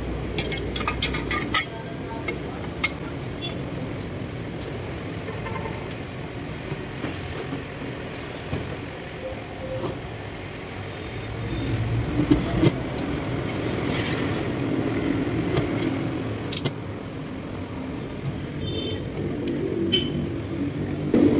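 Metal clinks of a turbocharger and its heat-shield cover being handled and fitted: a quick cluster of clicks in the first couple of seconds, then a few single ones. Under them is a steady low rumble of motor traffic that swells for a few seconds midway.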